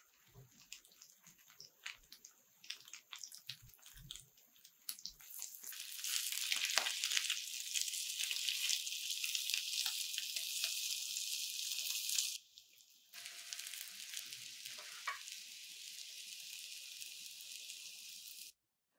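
Egg-soaked baguette slices frying in butter in a nonstick pan: light scattered pops and crackles at first, then a loud steady sizzle from about five seconds in. The sizzle breaks off briefly near twelve seconds, comes back quieter, and cuts off just before the end.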